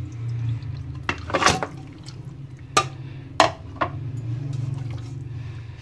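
Raw beef pieces and their juices tipped from a plate into a steel pressure cooker: a pour of liquid and about five wet thuds and clinks of meat and plate against the metal pot, over a steady low hum.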